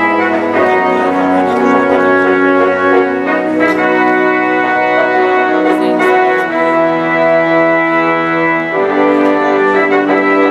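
Live band playing the instrumental opening of a slow ballad: held chords that change about six and nine seconds in.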